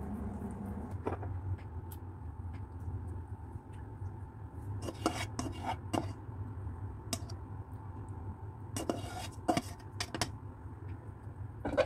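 A slotted plastic spatula scrapes and knocks against a nonstick wok and a serving plate as saucy tofu is pushed out of the wok. The scrapes and clacks come mostly in the second half, over a steady low hum.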